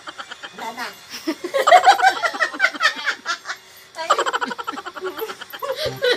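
Women laughing and giggling in two bursts, the first starting about a second in and the second about four seconds in.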